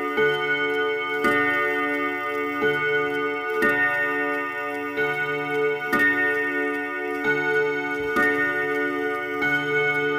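Junghans W278/201 movement's bim-bam strike on a 5-rod gong: hammers strike the rods about every 1.2 s, about nine times, alternating between two ringing chords. Each chord rings on into the next strike, over the movement's ticking.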